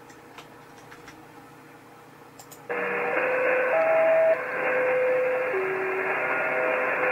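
Shortwave reception of the Bangkok Meteorological Radio utility station's interval tune, played back from a recording: a simple melody of steady tones stepping up and down in pitch through a hiss of static. It starts suddenly about three seconds in, after a few faint clicks.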